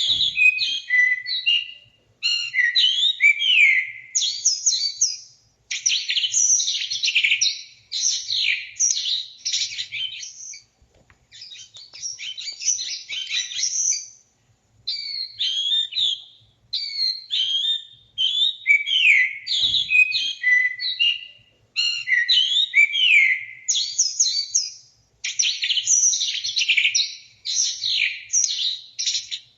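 A songbird singing a long, varied song of rapid sweeping and trilled notes, copying the calls of other birds. The song comes in runs of a few seconds with short pauses between them.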